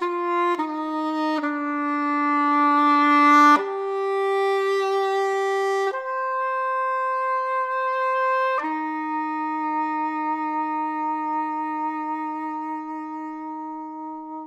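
Solo English horn playing slow notes: two short notes, then longer held ones, a jump up to a higher note around four seconds in, and a final low note held for about six seconds that gradually grows softer and stops right at the end.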